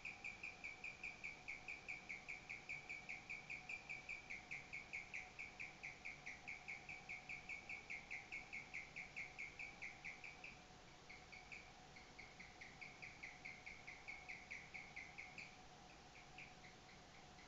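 Guinea pig chirping, the so-called singing: a long unbroken run of quick, even, slightly falling chirps, about five a second. Near the end the chirps break off briefly, then turn sparse and uneven. A faint steady hum runs underneath.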